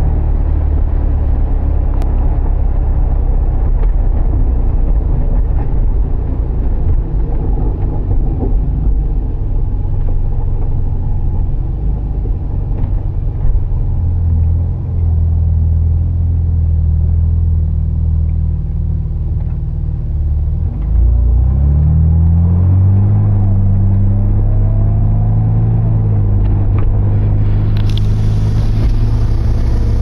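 A BMW E30 driving, heard from inside the cabin: a loud, steady low rumble and drone from the drivetrain and road. About two-thirds of the way in it gets louder and the engine note rises, then holds steady. The owner hears this as a grinding from the rear around 40 mph, with vibration, and is unsure whether the driveshaft or the pinion bearings are at fault.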